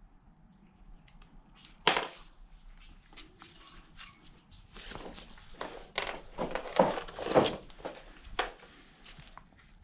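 Hand-tool handling: a sharp knock about two seconds in, then a run of clicks, taps and scrapes from about five to eight and a half seconds, as a valve stem core puller is picked up and fitted to the tire's valve stem.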